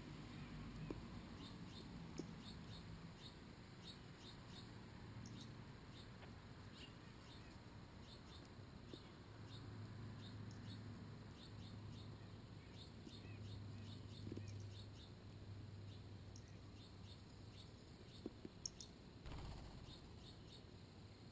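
Faint outdoor ambience with many short, high chirps or ticks scattered throughout over a low steady hum, and a brief rustle near the end.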